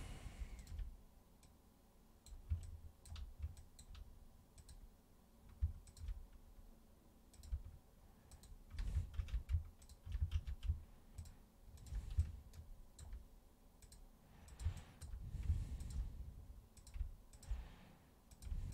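Computer mouse and keyboard clicking irregularly while modelling, with soft low thumps in between.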